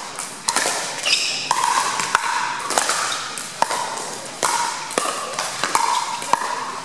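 Pickleball paddles striking a hard plastic ball in a quick volley exchange: a string of sharp pops, about one every half second to second.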